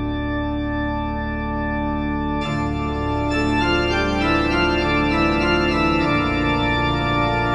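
Organ music playing held chords that change about two and a half seconds in and again about six seconds in, with higher notes joining in around three seconds in.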